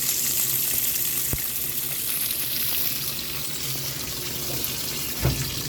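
Washing machine filling with water: a steady hiss of water running into the tub over a faint low hum, with a short knock near the end.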